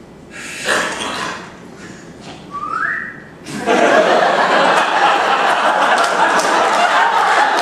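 A short whistle sliding upward in pitch, voiced as an improvised sound effect, then an audience bursting into loud, sustained laughter and applause about three and a half seconds in.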